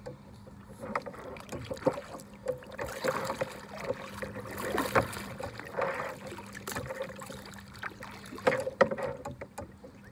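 Kayak paddling: the paddle blades dipping and splashing through the water in irregular strokes, with a few sharp knocks mixed in.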